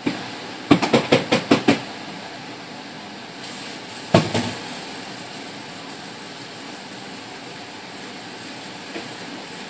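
Steady rushing of a kitchen range hood fan running over a pan of frying omena, with a quick run of about seven clatters about a second in and a single knock about four seconds in.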